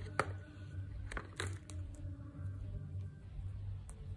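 Light handling noises: a few soft clicks and rustles as a USB charging cable is moved about over plastic packaging, over a steady low hum.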